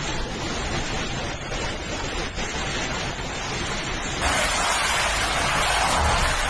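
Storm wind and heavy rain making a steady rushing noise. About four seconds in it changes abruptly to a louder rush of gale-force wind and driving rain.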